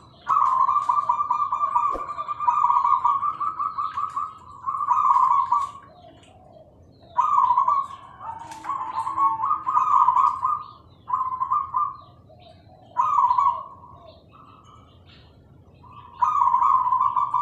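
Zebra doves (perkutut) cooing in repeated bursts of rapid, rolling coos, each phrase lasting about one to four seconds with short pauses between. Faint higher chirps from other small birds can be heard in the background.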